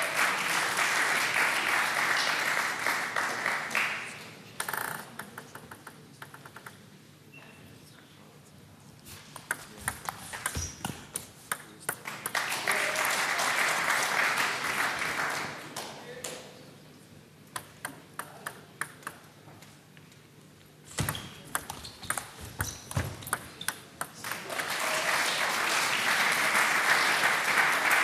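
Table tennis rallies: the ball clicking off bats and table in quick strings of sharp ticks. Each rally is followed by a few seconds of crowd applause, three times in all.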